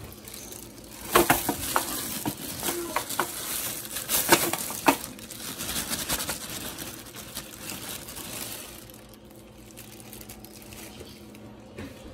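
A plastic bag crinkling and a disposable aluminium foil pan crackling and clicking as ground meat is emptied from the bag into the pan. There are sharp clicks, loudest about a second in and again around four to five seconds in, and the handling dies down after about nine seconds.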